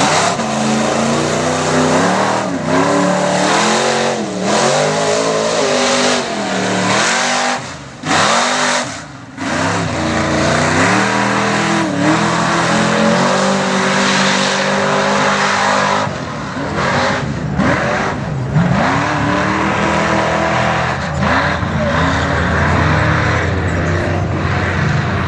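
Engine of the Punisher Chevy mega truck revving up and down over and over as it drives through deep mud, its pitch rising and falling with each stab of the throttle and dipping briefly twice about a third of the way in.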